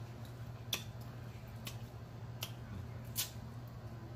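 Close-up mouth sounds of eating a sauced chicken wing and sucking the fingers: four sharp wet smacks or clicks, roughly a second apart, over a low steady hum.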